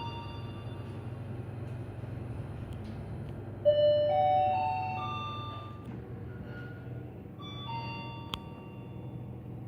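Hyundai elevator electronic chimes. About a third of the way in comes a louder four-note rising chime, the four-stage arrival chime. Near the end comes a two-note falling ding-dong with a sharp click, over a steady low hum.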